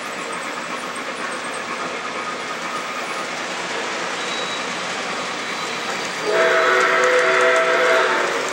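O scale model trains running on three-rail track, a steady rolling clatter of wheels. About six seconds in, a model steam locomotive's sound-system whistle blows a chord-like note for about two seconds, louder than the running noise.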